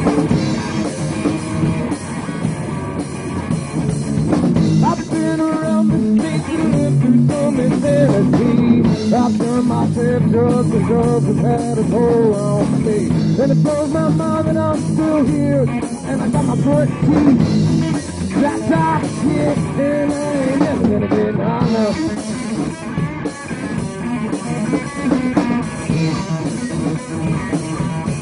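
A two-piece rock band playing live: guitar and drum kit, with a voice singing over them through the middle of the stretch.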